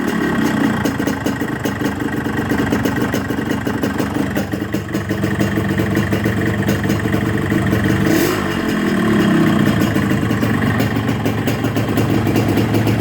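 Yamaha RX-King's 135 cc two-stroke single-cylinder engine running at idle, with a brief rev that rises and falls back about eight seconds in. Its exhaust has the shrill, cricket-like 'ngerik' note.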